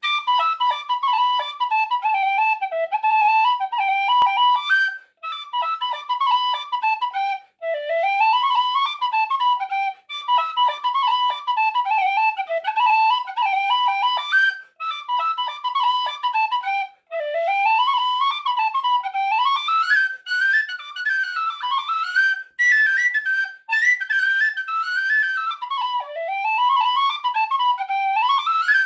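Solo Lir D tin whistle playing an Irish reel in G major, a fast stream of ornamented notes, with short breaks every few seconds where the player takes a breath. The tune moves into a higher register about two-thirds of the way through.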